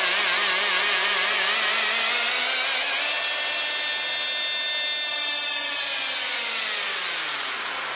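Closing of an electronic trance track: a wavering synth chord over a wash of white-noise hiss. From about five seconds in the synth's pitch sweeps steadily downward as the sound fades out.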